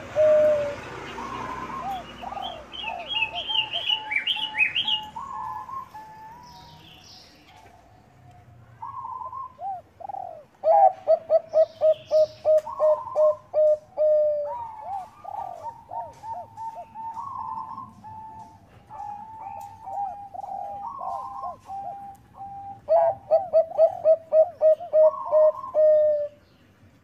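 Zebra dove (perkutut bangkok) cooing: rapid runs of short, staccato low notes, about four a second, with slurred phrases between runs. A few higher bird chirps come in a few seconds in.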